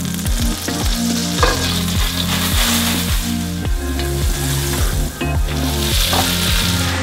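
Butter sizzling and frying in a stainless steel pan, with sliced mushrooms frying in it near the end.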